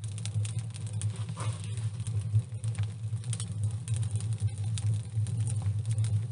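Hand rubbing and pressing a clay coating onto a metal bucket stove, giving many small irregular scratchy clicks, over a steady low hum.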